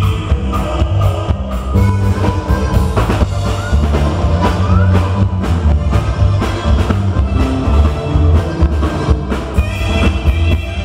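Norteño band playing live, an instrumental passage with no singing: button accordion over electric bass and drum kit keeping a steady beat, with an alto saxophone coming in near the end.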